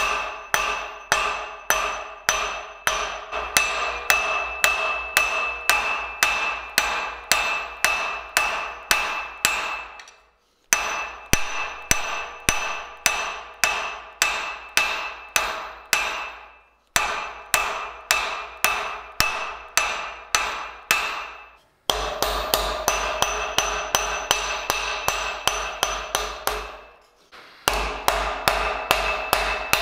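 Hand hammer forging a red-hot steel bar on an anvil, striking steadily about twice a second, each blow ringing from the anvil. The hammering breaks off briefly a few times and runs a little faster in the later part.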